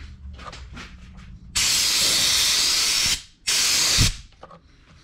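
Compressed-air blow gun hissing in two bursts, a long one of about a second and a half, then a shorter one about half a second long that ends with a light thump.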